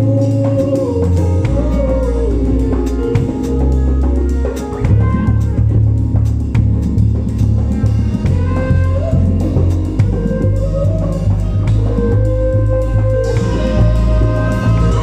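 Live band playing through the sound system: drum kit, a heavy bass line and a gliding lead melody over them.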